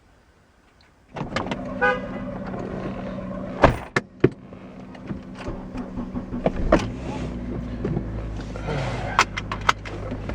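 2004 Acura TSX's 2.4-litre four-cylinder engine starting about a second in and then idling steadily, with a few sharp clicks and knocks over it.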